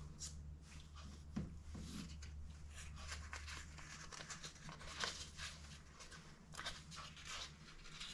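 Faint, irregular rustling and crinkling of baking parchment and puff pastry as hands lift and fold the pastry's edge to begin rolling it, over a low steady hum.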